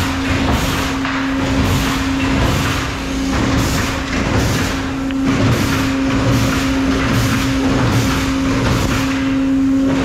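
Steady drone of sawmill machinery running, with a constant low hum throughout.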